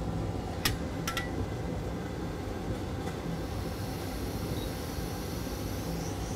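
Steady low rumbling background noise with two light, sharp clicks about a second in.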